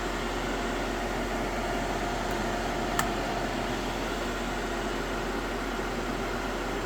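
Vintage Lazy Dazey Model 3100 tabletop hair dryer running, its fan motor blowing with a steady hum. There is a single sharp click about three seconds in.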